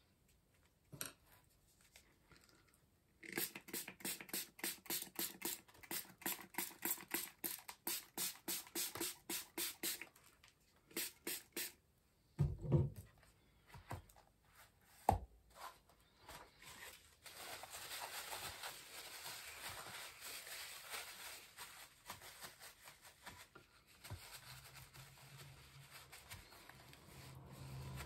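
Hands working an acrylic-painted art-journal page: a run of quick scratchy strokes, about three a second, then two dull knocks, then a long steady rubbing of a paper towel over the page.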